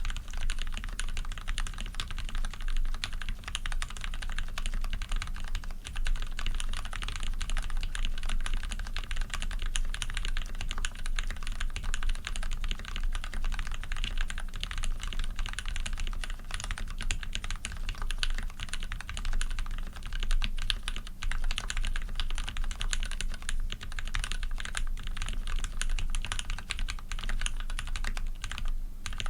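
Fast, continuous typing on a custom PC Dolphin mechanical keyboard with a brass plate and lubed Cherry Retooled Black linear switches under PBT keycaps: a dense run of key clacks with no pauses.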